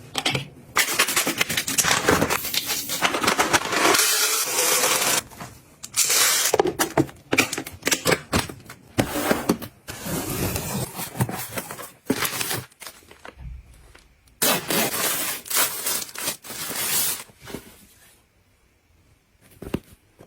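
Packaging and household items being handled during restocking: crinkling, rustling and scraping in irregular bursts, dying away near the end.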